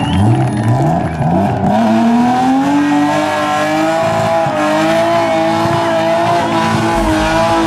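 BMW E30 rally car's engine revving hard during a burnout, with the rear tyres spinning and squealing. The revs climb over the first few seconds and then hold high and steady.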